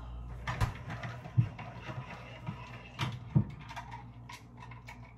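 Kitchen items being handled on a counter: a handful of sharp knocks and taps, as of a cup and containers being picked up and set down, with softer handling noise between.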